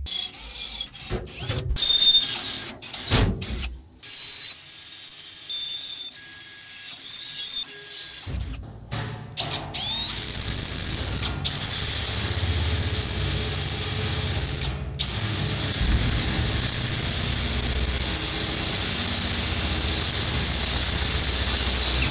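Electric drill boring into stainless steel sheet with a dull bit, squealing with a steady high whine over the motor's hum; the bit is dull. The drilling starts about ten seconds in, after a few knocks and clunks of handling, and pauses briefly twice.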